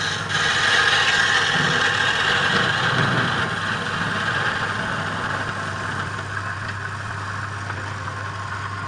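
Wood lathe running with a steady motor hum, and the hiss of a turning tool cutting the spinning wood, loudest in the first few seconds and slowly easing off.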